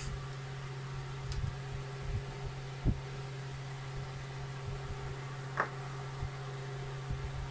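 A steady low hum throughout, with a few light clicks as a small screwdriver and the plastic parts of a pressure washer lance are handled. The sharpest click comes about three seconds in and another comes past the middle.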